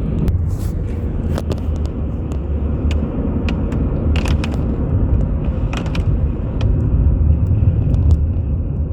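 Car driving on a wet road: a steady low road rumble with scattered light ticks throughout.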